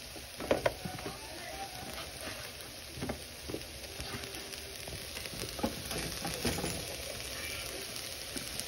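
Chicken pieces and mixed vegetables frying in a pan: a steady sizzle with a few sharp clicks and knocks, the loudest about half a second in.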